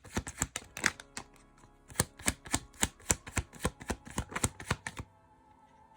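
Tarot cards being shuffled by hand: a quick, irregular run of card slaps and flicks that stops about five seconds in, leaving soft background music with held notes.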